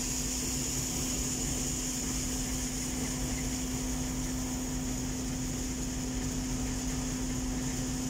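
Combine harvester running steadily while its unloading auger empties shelled corn into a trailer, heard from the operator's cab: a constant machine drone with a steady hum and a high hiss.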